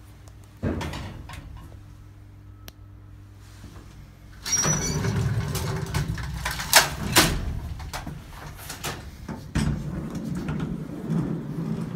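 Old elevator's collapsible metal accordion gate slid open by hand, starting about four and a half seconds in: a loud metallic rattle with several sharp clanks as the gate folds. Before it, a steady low hum with a single clunk near the start.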